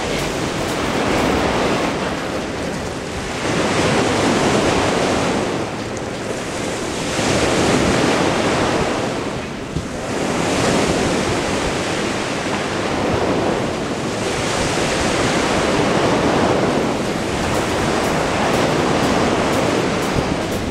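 Small lake waves washing onto a sand and gravel shore, swelling and fading every three to four seconds, with wind rumbling on the microphone.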